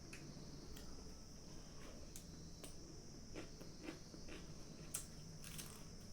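Quiet chewing and mouth sounds while eating, with scattered small clicks, the sharpest about five seconds in, over a faint steady high-pitched hiss.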